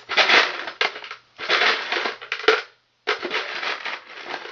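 A hand rummaging through a container of loose small parts, wire connectors and broken glass clattering together in several noisy bursts.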